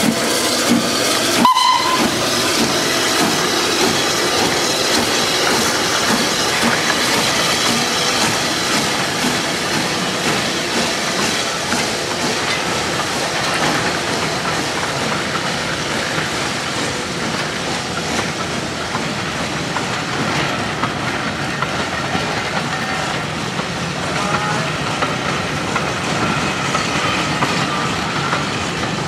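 Steam locomotive No. 847, a Southern Railway S15 4-6-0, pulling away: a short whistle blast about a second and a half in, with steam hissing from around its cylinders. Then the steady rumble and clickety-clack of its carriages rolling past on the rails.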